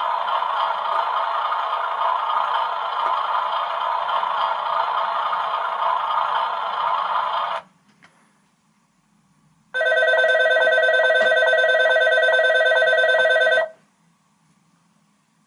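A bell rings steadily for about seven and a half seconds and cuts off. After a two-second silence, a pulsing electronic tone sounds for about four seconds and stops.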